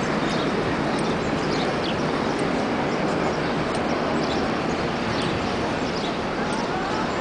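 Steady city plaza ambience: a constant rush of traffic noise, with short high bird chirps scattered through it.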